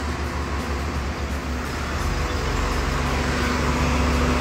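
Steady engine and road noise from motor vehicles, with a deeper engine rumble and hum growing in about halfway through.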